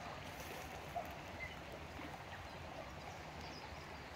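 Steady, faint outdoor ambience of a slow-flowing creek: a low, even water noise with a small tap about a second in.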